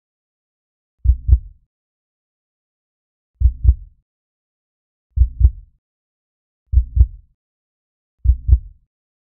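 Heartbeat sound effect: five low double thumps, lub-dub, with silence between them, coming closer together after the first gap.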